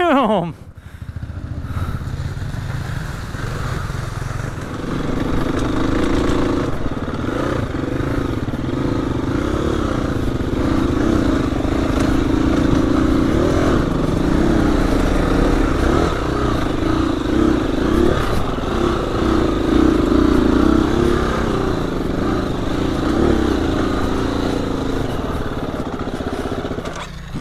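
Dirt bike engine running steadily at part throttle as the bike rides a trail, its pitch wavering a little with the throttle under a noisy rumble. It is quieter for the first few seconds, then louder from about five seconds in.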